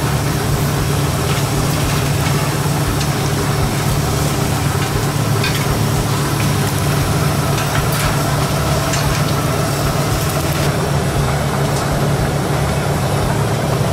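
An engine idling with a steady low hum, with a few light clicks now and then.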